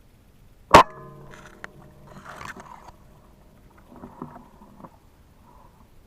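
A single sharp PCP air rifle shot about a second in, with a brief ringing tail. It is followed by softer rustling and scuffling.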